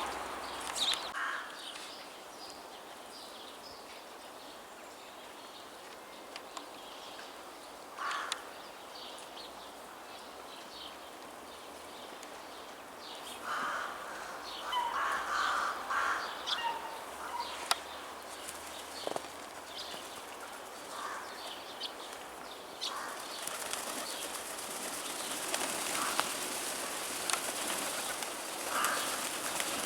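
Wild birds at a winter feeder: scattered short, high chirps and calls, with a few louder calls clustered about halfway through. A steady hiss grows louder about two-thirds of the way in.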